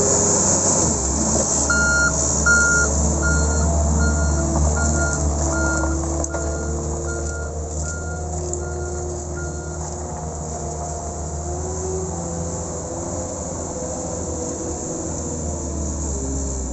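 New Holland L218 skid steer loader running, its engine pitch wavering as it works, with a reverse alarm giving about a dozen evenly spaced high beeps, roughly three every two seconds, from about two seconds in until about ten seconds in: the machine is backing up.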